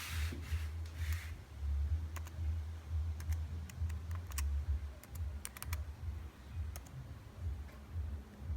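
Irregular clicks of keys pressed one at a time on a laptop keyboard, about a dozen in all. A short rustle comes right at the start, and a steady low hum runs underneath.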